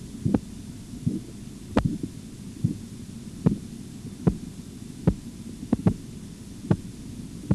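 Korotkoff sounds heard through a stethoscope during a blood-pressure cuff reading: sharp, regular tapping about once every 0.8 seconds over a low rumble. This is the pulse becoming audible in the artery below the cuff as the cuff pressure falls.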